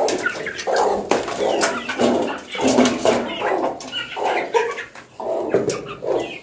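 Farm animals calling: a run of short, repeated calls, one or two a second.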